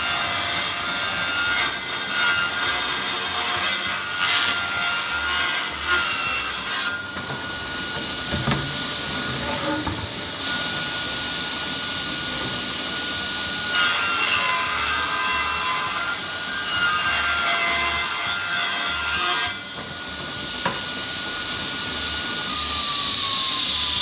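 Table saw ripping plywood: the blade cuts for about seven seconds, then runs free with a steady whine, cuts again for several seconds, and runs free once more. Near the end the saw is switched off and its whine falls in pitch as the blade spins down.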